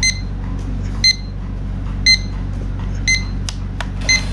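A folding camera drone and its remote controller sounding short, high electronic beeps about once a second over a steady low hum. Near the end a faint rising whine begins as the drone's motors start turning.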